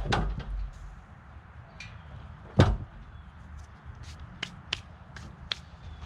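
Freshly sawn tulip poplar boards being handled and knocked together: a dull knock at the start, a louder one about two and a half seconds in, then several light sharp clicks.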